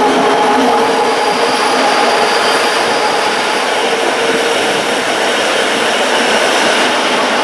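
Rhaetian Railway narrow-gauge train running, heard at an open carriage window: a steady rolling noise of wheels on track with a faint steady whine held over it.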